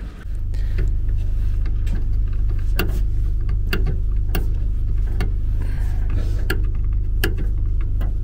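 A steady low mechanical hum runs throughout, with scattered sharp clicks of a small screwdriver working at the terminals of a vacuum toilet's control unit.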